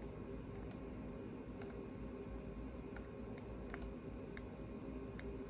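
Faint, irregular clicks from the controls of a computer workstation, several over a few seconds, over a steady low hum.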